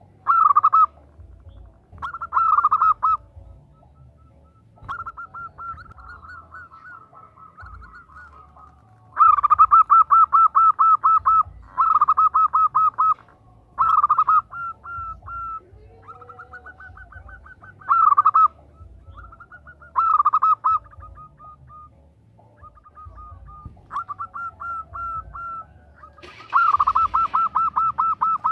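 Female zebra dove (perkutut) cooing: about a dozen bursts of quick staccato notes, each burst about a second long, with softer trilled runs in between. It is the call of a female in breeding condition calling for a male.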